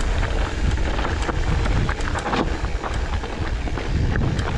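Mountain bike rolling fast down a stony dirt track: tyres crunching over loose gravel and the bike rattling with frequent small knocks, over a steady low rumble of wind on the microphone.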